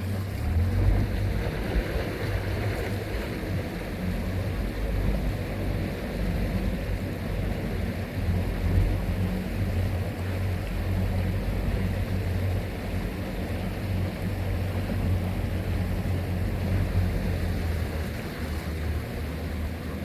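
A boat's motor running steadily with a low, even hum, with wind on the microphone and water noise over it.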